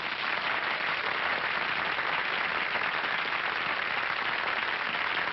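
Audience applauding, a steady even wash of clapping.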